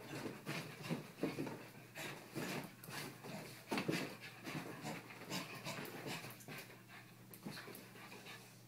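A puppy panting during rough play, mixed with irregular scuffs and pats on the bedding.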